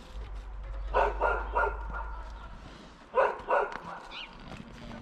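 A dog barking at the wild boars in quick sharp yaps: three about a second in, then two more just past three seconds.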